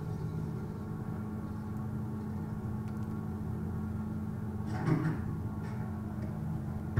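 A boat's engine running steadily, a low droning hum, with a brief louder noise about five seconds in. The hum cuts off suddenly at the end.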